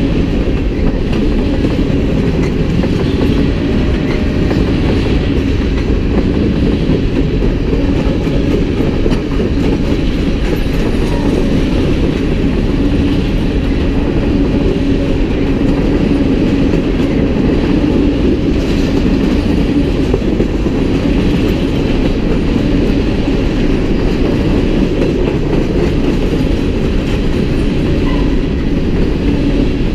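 Freight train's hopper and tank cars rolling past, a steady low rumble of steel wheels on rail.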